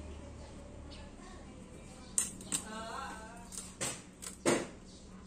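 A small metal pick scraping and prying at white rubber tyre-lettering stickers on a tyre sidewall, with scratching and a few sharp clicks about two seconds in and again near the end. A steady low hum runs underneath.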